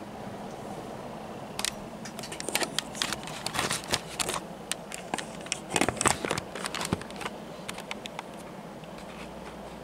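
Montgomery Wards 48-inch cast iron spinner ceiling fan running steadily at full speed, a low hum with rushing air. For a few seconds in the middle an irregular run of sharp clicks and crackles sounds over it.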